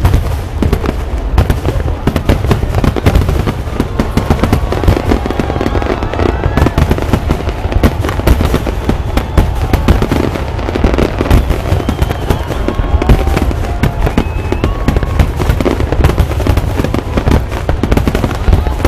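A dense, unbroken barrage of fireworks shells bursting in rapid succession, from the finale of a midnight New Year's fireworks display, with crowd voices calling out over it.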